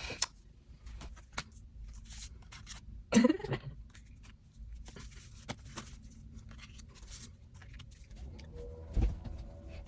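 Light clicks and rustles of photocards and album packaging being handled. About three seconds in there is a short cough-like sound, and near the end a thump.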